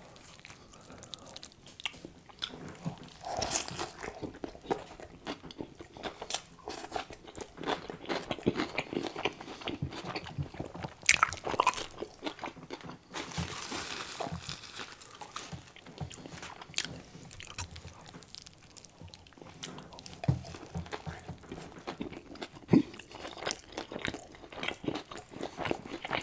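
Close-miked chewing and biting of a burger, with wet mouth clicks and soft crunches coming irregularly. About halfway through, a paper napkin rustles against the mouth for a second or two.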